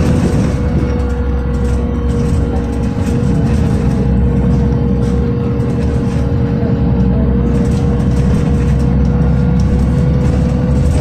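Cabin sound of a Volgabus-5270.G2 city bus cruising on its liquefied-natural-gas Yuchai YC6L280N engine: a steady low rumble of engine and road noise with a constant whine over it.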